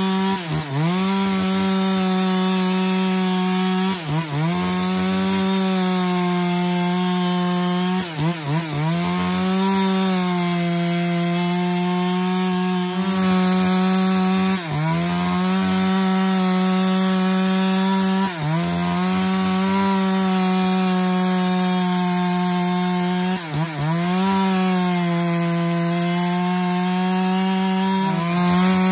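Stihl MS 382 two-stroke chainsaw at full throttle, ripping lengthwise along the grain of a red meranti log. The engine runs at a steady high pitch that briefly sags and recovers every few seconds as it is eased or loaded in the cut.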